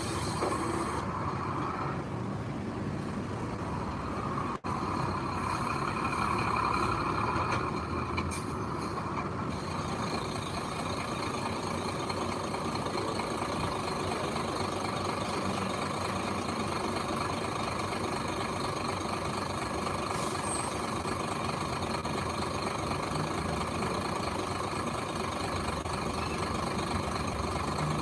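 Diesel engine of heavy earth-moving machinery running steadily, with a brief break about four and a half seconds in.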